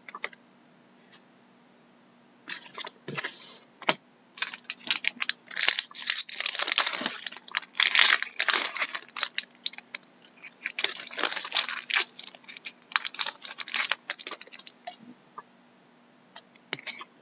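Foil wrapper of a Fleer Retro hockey card pack being torn and crinkled by hand, an irregular crackling that starts a few seconds in and stops about two seconds before the end.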